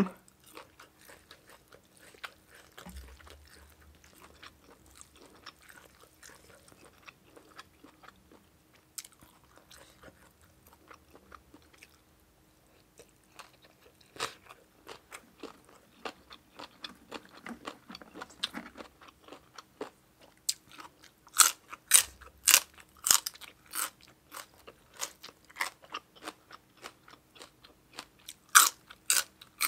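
Close-miked eating: soft chewing of spicy papaya salad, quiet and sparse at first, then busier with sharp, crisp crunches from about two-thirds through and again near the end as raw green vegetables are bitten.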